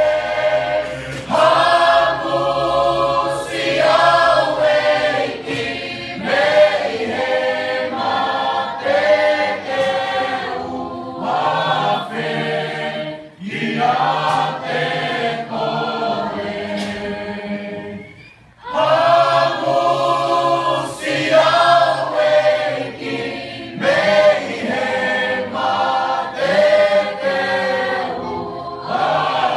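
A choir singing a hymn-like piece in several harmonised voice parts, in long phrases with a brief pause for breath about 18 seconds in.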